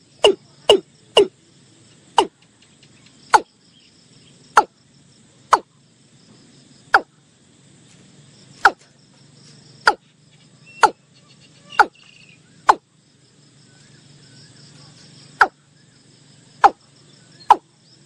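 Watercock (Gallicrex cinerea) calling: a series of short, loud notes, each dropping steeply in pitch. The notes come close together at first, spread out to a second or more apart, and quicken again near the end.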